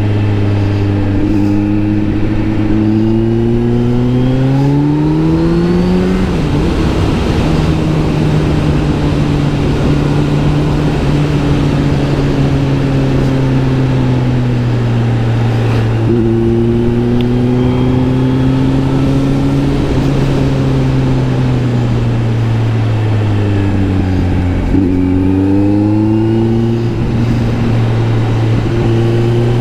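Kawasaki Z900 SE's inline-four engine through an SC Project S1 exhaust, under way. The engine note climbs and drops sharply at a gear change about six seconds in, sinks slowly as the bike rolls off, then climbs again near the end.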